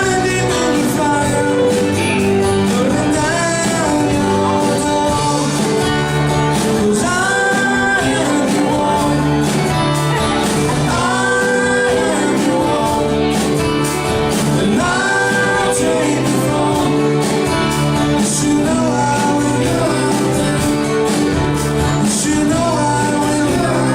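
A live band playing a song with a sung lead vocal over the instruments, steady and loud throughout.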